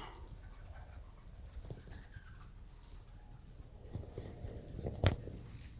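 A dense, steady chorus of high-pitched squeaks and chirps from many unseen small animals, with a single sharp knock about five seconds in.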